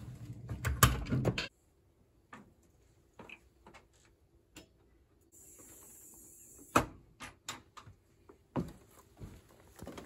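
A door latch rattling and clicking as it is undone and the door opened, then scattered knocks and clicks. Near the middle a short hiss ends in a sharp click as the storm door is pulled shut, followed by a few more knocks.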